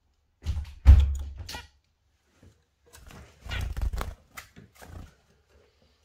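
Cage birds fluttering and landing on wooden perches: two bursts of wing flutter with dull thumps, the loudest about a second in and another around three and a half seconds, mixed with a few short chirps.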